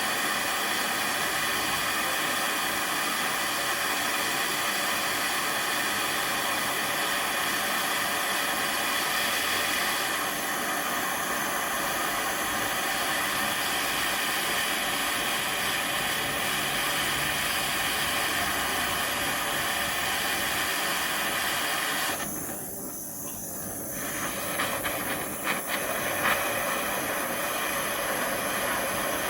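Gas burner flame hissing steadily while it heats the steel steering rod. About three quarters of the way through, the hiss drops for a couple of seconds, then comes back with a few light clicks.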